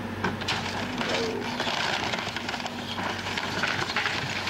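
Heavy demolition machinery running steadily while wood and debris of a fire-damaged cabin crack and crunch irregularly as it is torn down.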